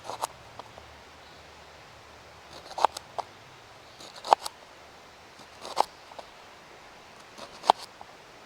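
A knife slicing through a jalapeno. Each cut ends in a sharp tap, about one every second and a half.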